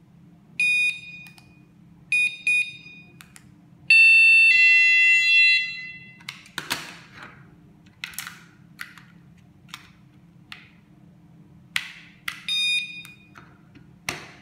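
Wireless magnetic door/window alarm units beeping in reply to a key-fob remote: a few short high beeps, then a louder two-pitch alarm tone lasting about two seconds, then another short beep near the end. Between them come the clicks and knocks of the plastic alarm units being handled.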